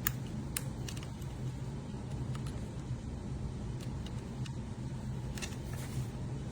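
A steady low mechanical hum with a few light clicks scattered through it.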